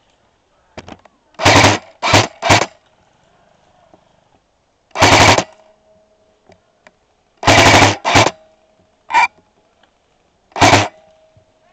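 Airsoft gun firing in short bursts: about eight loud bursts of under half a second each, spaced irregularly, with pauses of a few seconds between some of them.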